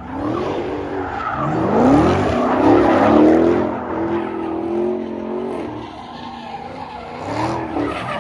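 Car engines revving hard and tyres squealing as cars spin donuts. The pitch climbs in rising sweeps in the first few seconds, then a long steady screech is held through the middle.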